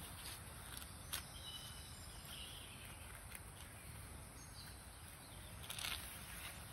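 Faint outdoor background noise with a few light clicks, and a brief faint high chirp a second or two in.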